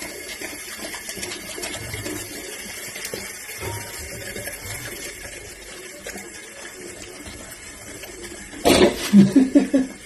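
Water running steadily from a bathroom washbasin tap. About nine seconds in, a short loud burst of a voice in several quick pulses cuts over the water.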